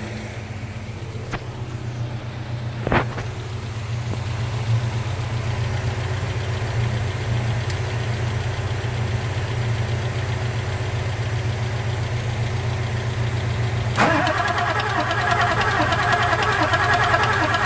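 1994.5 Ford 7.3 Powerstroke diesel in a no-start, no-smoke condition. A steady low mechanical hum runs throughout, with a sharp click about three seconds in. About fourteen seconds in, a louder, fast-rattling mechanical sound starts suddenly and keeps going.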